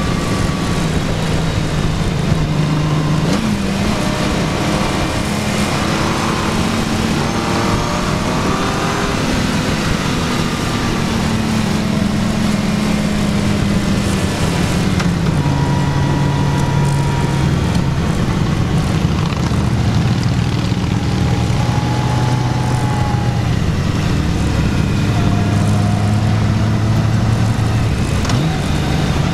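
Motorcycle engine running at road speed under a steady rush of wind noise. Its pitch climbs under throttle and steps up and down with gear changes.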